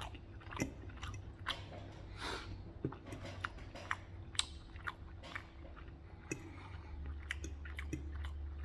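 A person chewing a mouthful of food close to the microphone, with irregular small mouth clicks. A steady low hum runs underneath and gets louder near the end.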